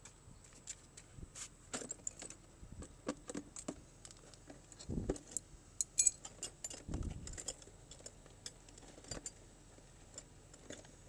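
Metal tools clinking and rattling in irregular small clicks, with a couple of duller knocks, as hand tools such as a wrench are handled.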